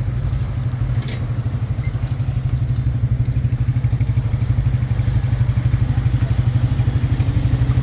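A motor vehicle engine running steadily, a low, fast, even throb.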